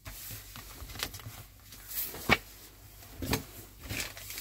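Hands moving a paper magazine and small packaged parts about on a tabletop: scattered rustling and light knocks, the loudest a sharp knock about two seconds in.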